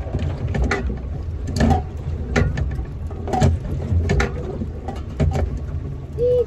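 Steady low rumble of a fishing boat's outboard motor running, with irregular sharp knocks and clicks about once a second.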